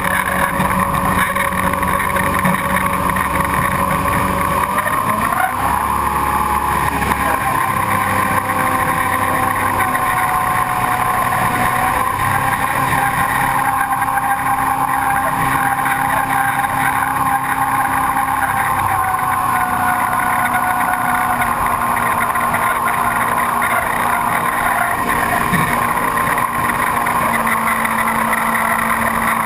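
V8 engine of a tunnel-hull jet boat running hard at speed on the water. Its note rises about five seconds in and then holds steady.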